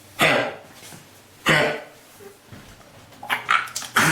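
A dog coughing in three harsh bouts: one just after the start, another about a second and a half in, then a quick run of shorter coughs near the end. The coughing is not vomiting; it is taken for kennel cough (Bordetella bronchoseptica).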